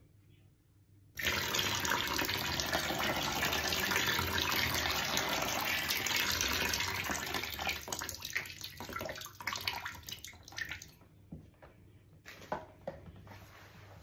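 Hot water poured into an empty clear plastic storage tub, splashing on the plastic bottom. The stream starts suddenly about a second in, runs steadily for several seconds, then thins into scattered splashes and drips, with a last few near the end.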